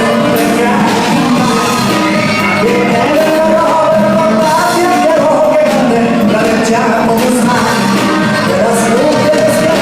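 Live regional Mexican band music with singing and shouts, loud and steady throughout.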